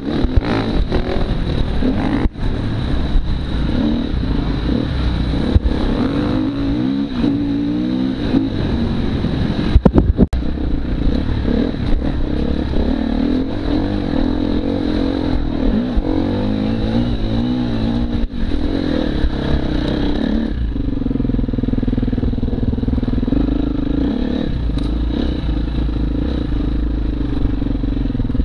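Enduro motorcycle engine, a Husqvarna FE 250 four-stroke single, revving up and down while riding off-road, with clattering knocks from the bike. A sharp knock about ten seconds in is the loudest moment. From about twenty seconds in the engine holds a steadier pitch.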